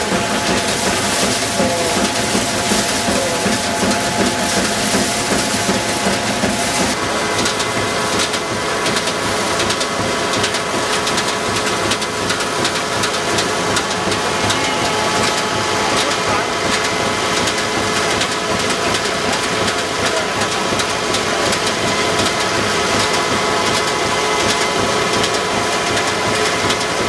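Ajuria threshing machine running under a belt drive from a Fordson Major tractor, threshing the straw being fed into it: a loud, steady mechanical clatter and whir with several steady humming tones.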